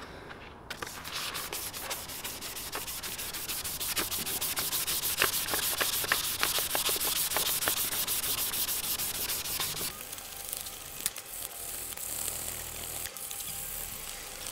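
1500-grit wet and dry paper being rubbed by hand across a faded plastic BMW E46 M3 inner tail light lens, wet-sanding off the dull, faded surface: a fast, even rasping of short strokes. It starts about a second in and turns quieter and smoother about ten seconds in.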